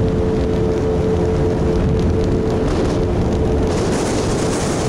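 Motorboat underway on a lake: the engine runs at a steady speed under a low rumble of wind and water. A rushing hiss of wind and spray grows louder near the end.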